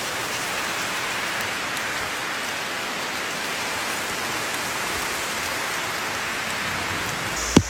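Steady rain hiss. Near the end a high steady buzz comes in, along with a couple of sharp clicks.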